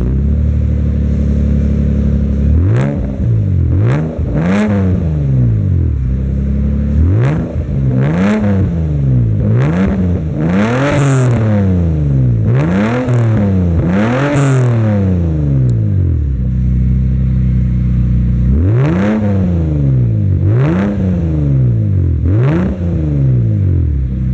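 Toyota Supra's 2JZ-GE VVT-i inline-six idling and being revved through an HKS-style 3-inch straight-through rear muffler: a string of quick throttle blips, each rising and falling in pitch, with steady idle before the first and again about two-thirds of the way through.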